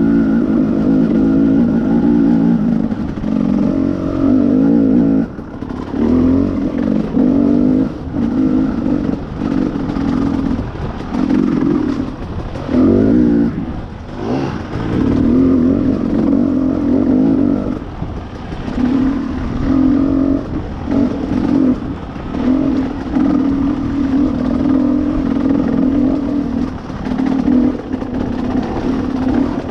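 Dirt bike engine on the trail, throttle opened and closed over and over in short surges about once a second, with brief lulls about five seconds in and again near the middle.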